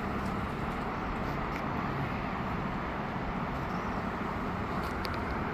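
Steady low outdoor background rumble, with a few faint short clicks.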